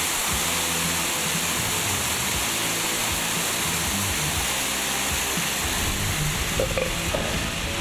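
Water rushing steadily over a small rock cascade, a continuous hiss of falling and splashing water.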